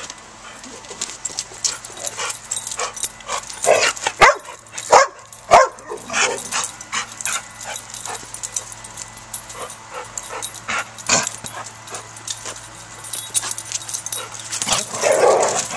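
Dogs barking and yipping as they play, with a run of loud, sharp barks about four to six seconds in and a longer bark near the end.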